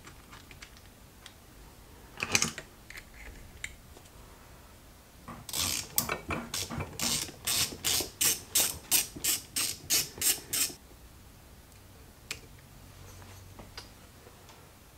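Ratchet wrench clicking in quick back-and-forth strokes, about three a second for some five seconds, as the intake bolts on a Derbi moped engine are run in. A short clatter of tools comes about two seconds in.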